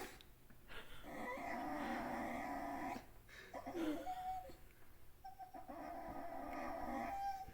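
A puppy making long, drawn-out whining cries: one lasting about two seconds, a short one in the middle, then another of about two seconds near the end.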